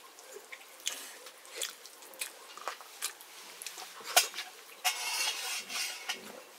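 Fingers mixing rice and chicken soup on a metal plate, giving scattered light clicks and scrapes against the plate, with a longer slurping eating sound about five seconds in as a handful goes to the mouth.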